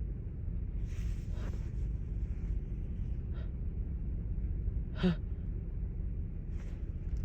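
A woman with a cold taking sharp, gasping breaths in as a sneeze builds but does not come. There is a breathy intake about a second in and a short voiced catch of breath about five seconds in.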